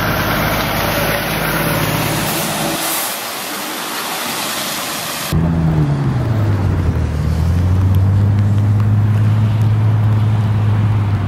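Road traffic on a wet highway: a steady hiss, then a low engine drone that drops in pitch about five and a half seconds in and holds steady.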